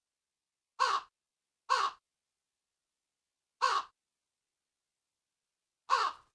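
Crow cawing: four short caws, two about a second apart, another about two seconds later, and a fourth near the end, with dead silence between.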